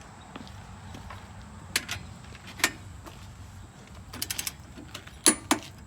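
Wrench working the motorcycle's rear axle nut: sharp metallic clicks one at a time, then a quick run of clicks about four seconds in, and two more near the end.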